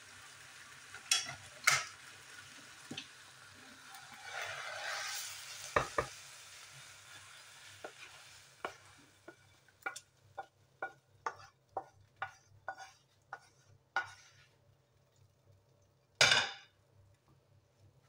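Wooden spatula scraping thick meat sauce out of a hot, sizzling non-stick pan into a ceramic baking dish, with a run of quick taps about two a second as the spatula works the pan. A single loud knock near the end as the pan is set back down on the hob.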